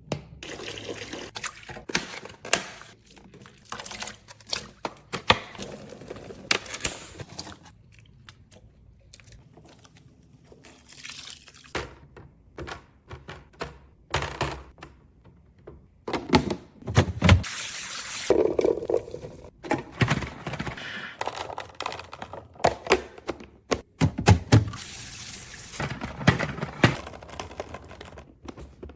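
Plastic storage bins and lids being handled: irregular clicks, knocks and clatter, with a quieter stretch about a third of the way through.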